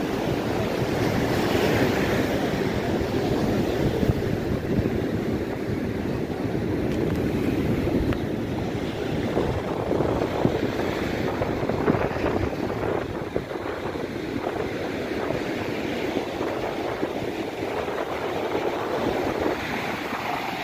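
Sea surf breaking and washing up a sandy beach, a steady rushing noise, with wind buffeting the microphone.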